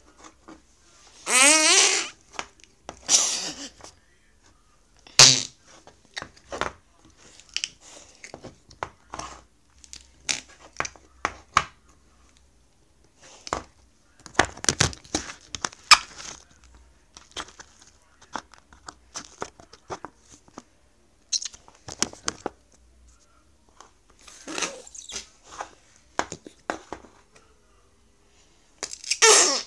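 Pink slime squeezed and pressed by hand, making an irregular string of wet squelches and crackles with farting noises. The loudest, about a second and a half in, is a squeaky fart with a changing pitch.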